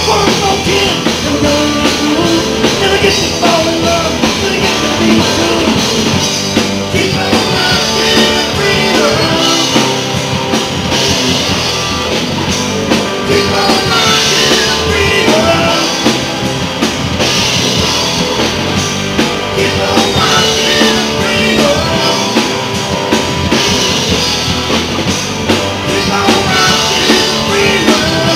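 Live blues-rock band playing loudly: two electric guitars and a drum kit, with a lead part played into a hand-held microphone over them.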